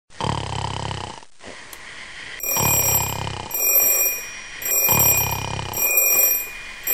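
A person snoring: three long snores about two seconds apart. From about two and a half seconds in, a high, thin steady tone sounds over them, breaking off briefly a few times.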